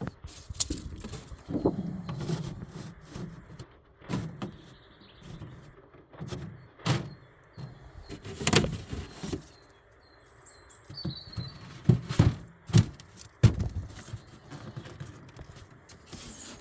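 Irregular knocks, thuds and scraping of wooden beehive parts being handled and fitted together, the sharpest knocks a few seconds from the end. Small birds chirp faintly in the background.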